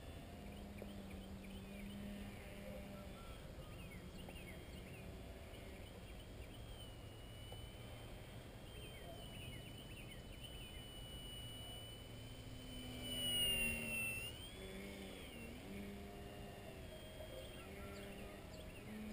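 Faint, thin whine of a small RC plane's motor and propeller in flight, wavering in pitch as the throttle changes. It swells briefly louder about thirteen seconds in, with the pitch bending up and then falling.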